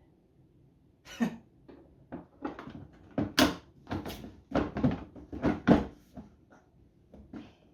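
Hard plastic parts of a pressure washer's housing being handled and fitted, a run of irregular knocks, clicks and clatter, loudest in the middle.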